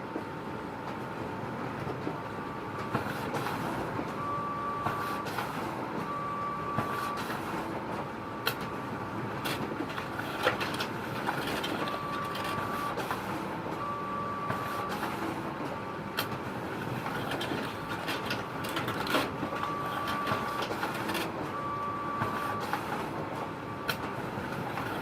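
Photocopier running: a steady mechanical hum with a thin whine, short high tones that come in pairs every several seconds, and scattered sharp clicks and knocks from the paper handling.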